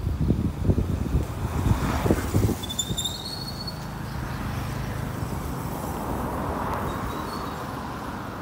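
Street ambience: low gusts buffeting the microphone in the first couple of seconds, then a car or other vehicle passing on the avenue, its tyre and engine noise swelling about two-thirds of the way through and easing off. A few brief high chirps come about three seconds in.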